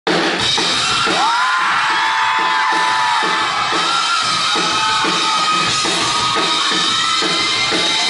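Live rock band playing: a drum-kit beat with bass guitar, and long sliding electric-guitar notes over it.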